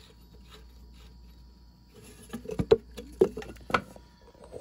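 Water dripping into a metal coffee can held under a hydronic boiler air vent as it is unscrewed by hand. About two seconds in come several sharp metallic clinks and knocks.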